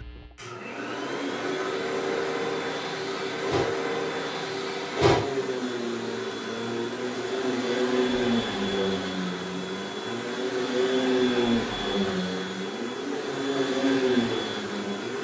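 Upright vacuum cleaner running, its motor hum wavering up and down in pitch as it is pushed back and forth over carpet. Two short knocks come about three and a half and five seconds in, the second louder.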